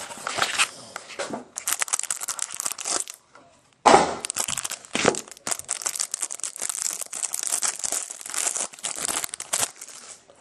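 Plastic wrapper crinkling and tearing as a stack of trading cards is unwrapped by hand, in quick rustling bursts, with a short pause about three seconds in and a sharp loud crackle just after.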